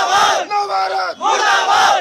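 A crowd of men shouting slogans in unison, short chanted phrases one after another.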